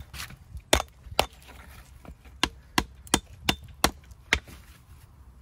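Walling hammer striking a walling stone to dress it to shape: eight sharp blows, two about a second in, then after a short pause six more at about three a second.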